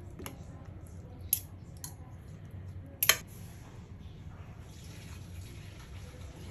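A spoon and spice shaker clicking against a ceramic plate while raw chicken wings are mixed in marinade and seasoned. There are a few sharp clicks, the loudest a quick double click about three seconds in, over a low steady hum.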